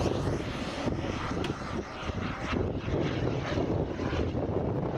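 Radio-control model F-16's jet turbine engine in flight, a steady roar whose high hiss drops away about a second in.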